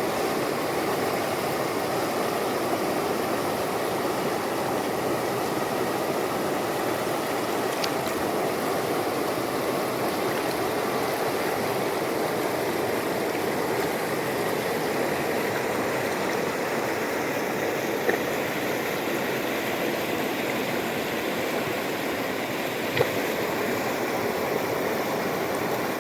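Water of a hill river flowing, a steady, even rushing. Two brief ticks come in the second half.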